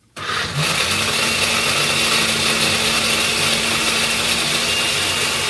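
Countertop blender switched on at its highest speed, blending almonds and water into almond milk. It starts suddenly just after the beginning and then runs loud and steady with a constant hum.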